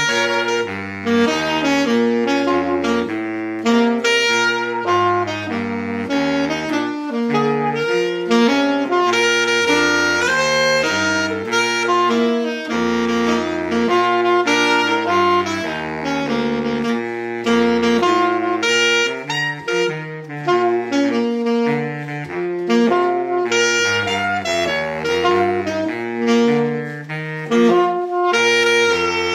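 Saxophone ensemble with a baritone saxophone on the bass line, playing a piece in several-part harmony.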